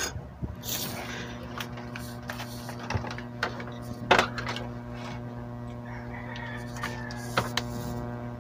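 Clicks and knocks of hands handling a CRT TV's circuit board and wiring, the loudest about four seconds in, over a steady low electrical hum. A rooster crows in the background near the end.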